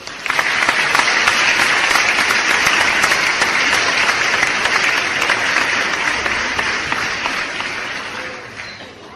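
Crowd applause sound effect: a dense, steady clapping from a large audience that swells in within the first half second and fades out over the last couple of seconds.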